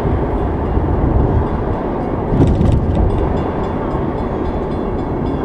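Steady road and engine rumble inside a moving car's cabin. From about three seconds in, faint regular ringing from a railroad grade-crossing bell.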